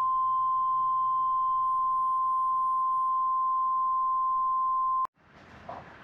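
A single pure electronic beep tone, steady and unchanging, held for about five seconds and cutting off suddenly.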